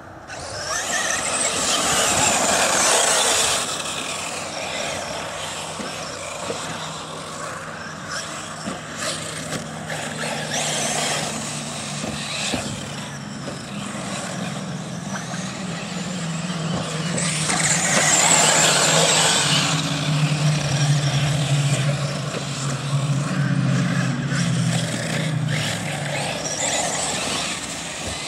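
Electric radio-controlled cars racing on a dirt track: motor whine and tyres spraying loose dirt swell up as the cars pass close, three times, over a steady low hum.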